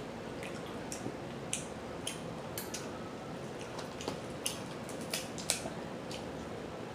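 Crab being eaten close to the microphone: irregular wet clicks and snaps of shell and meat being handled and chewed, the sharpest ones between about four and six seconds in.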